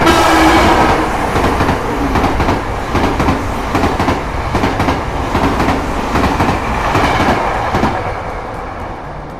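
A train passing, its wheels clacking over the rail joints amid a loud rumble. It starts suddenly and is loudest at the start, then fades away near the end.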